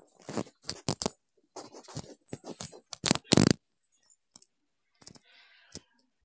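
Wooden ladle stirring watery chicken curry in an aluminium pot, knocking and scraping against the pot's sides. A quick run of clinks and knocks, the loudest a little after three seconds in, then only a few faint taps.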